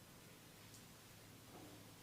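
Near silence: a faint steady hiss and low hum, with a faint tick under a second in and a soft brief sound near the end.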